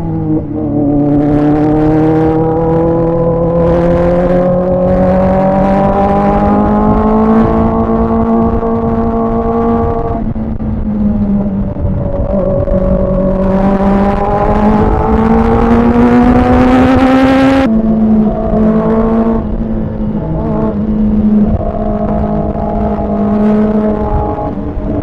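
Kawasaki ZX-4RR's 399 cc inline-four engine under way. The revs climb steadily for about ten seconds, ease off, and climb again. The pitch then drops sharply at a gear change about 18 seconds in and holds fairly level to the end.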